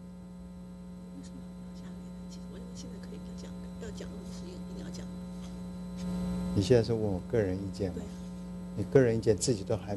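Steady electrical mains hum in the meeting-room audio feed, with faint voices under it. About six and a half seconds in, a person starts speaking into the microphone.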